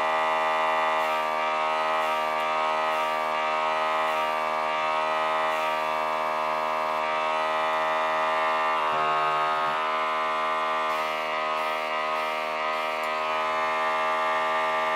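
Budget mini airbrush compressor running with a steady, fairly loud pitched hum.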